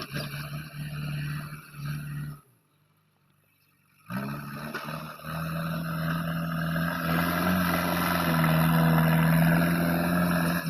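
Diesel engine of a JCB 3DX backhoe loader running steadily. The sound drops out for about a second and a half a couple of seconds in, then the engine resumes and grows slightly louder.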